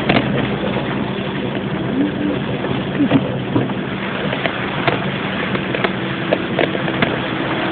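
Car engine running steadily while driving through flooded streets, heard from inside the cabin, under a constant wash of water noise with scattered light ticks and knocks.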